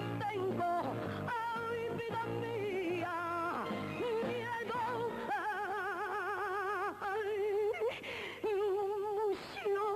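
A woman sings a long, drawn-out copla line with wide vibrato over musical accompaniment. The held notes waver evenly and break off briefly a few times near the end.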